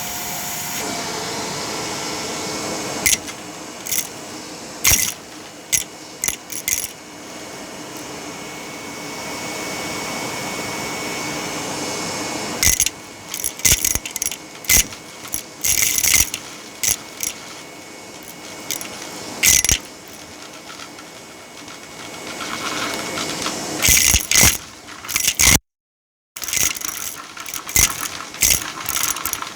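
Vacuum cleaner running steadily while sucking up small hard bits of debris, which click and rattle through it in scattered bursts.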